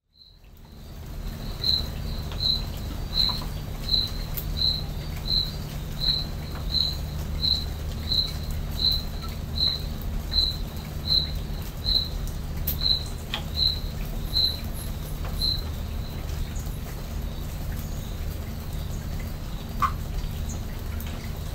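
A night creature chirping: a short high chirp repeated evenly about every 0.7 seconds, some twenty in a row, stopping about 15 seconds in. A steady low hum lies underneath.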